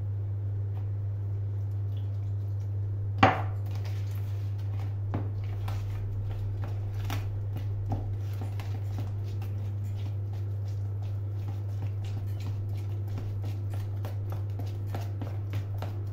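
Metal tablespoon stirring a flour-and-water batter in a plastic bowl: repeated small clinks and scrapes against the bowl, with one louder knock about three seconds in, over a steady low hum.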